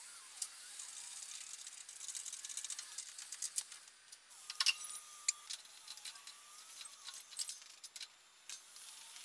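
Metal hand tools and axle parts clinking and rattling as they are handled during front-axle reassembly: scattered light clicks, busiest around four to five seconds in.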